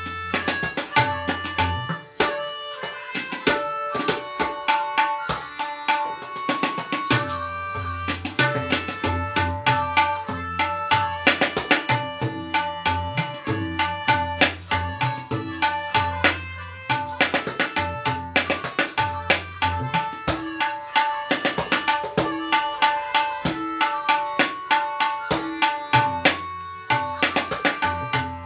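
Tabla played solo in teental, a dense, fast run of crisp strokes on the treble drum mixed with deep, resonant bass-drum strokes that come back again and again.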